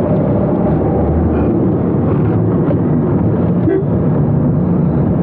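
Steady noise of a car on the move, engine and tyre noise heard from inside the cabin.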